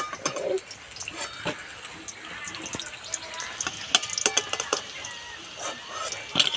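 Vegetable rolls deep-frying in hot oil in a wok: a steady crackling sizzle with scattered small pops. A few ringing metal clinks of a utensil on steel come about four seconds in.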